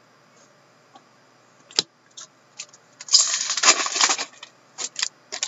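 A stack of trading cards being shuffled through by hand. A few sharp card clicks come first, then a dense patter of sliding and flicking cards about three seconds in that lasts just over a second, then a few more clicks near the end.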